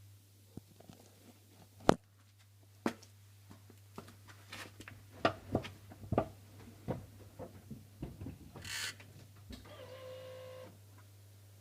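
Scattered clicks and knocks, a short hiss, then about a second of steady pitched humming tone near the end, with a low steady hum underneath. These are the handling and electrical sounds in a 1998 Porsche 996 before its engine is started.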